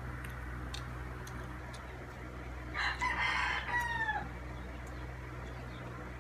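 A rooster crowing once, about three seconds in, a call of over a second that falls in pitch at its end, over a steady low hum.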